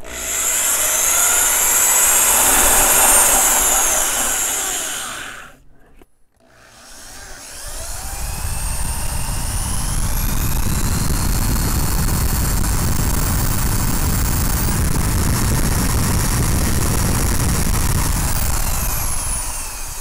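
Power drill turning a door-lock hole saw as it cuts through thin plywood. It runs for about five seconds, stops briefly, then starts again, its whine rising as it spins up, and keeps cutting to the end.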